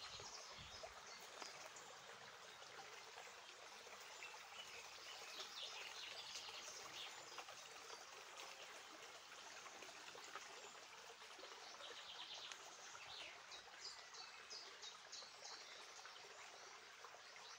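Faint outdoor nature ambience: a steady soft hiss with short high chirping trills from birds now and then, most clearly about twelve seconds in and near the end.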